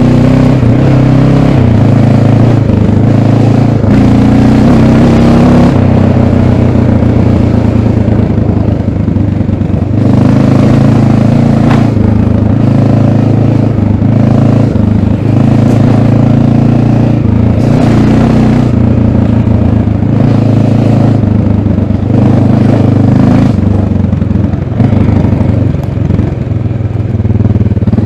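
1988 Honda NX650 Dominator's single-cylinder four-stroke engine on its stock exhaust, ridden off-road. Its speed rises and falls with the throttle, with a few brief lifts off.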